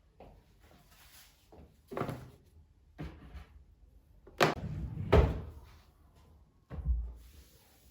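Five separate knocks and thumps of household things being handled and shut, like drawers or cupboard doors. The loudest comes about five seconds in, and a dull low thud comes near the end.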